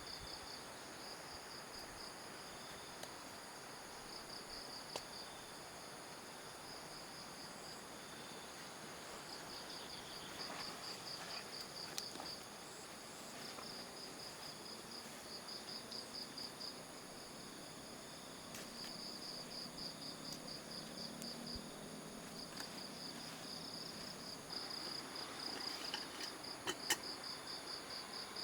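Crickets chirping in repeated short, rapid trills, with a steady high insect buzz behind them. A few faint clicks come in near the middle and near the end.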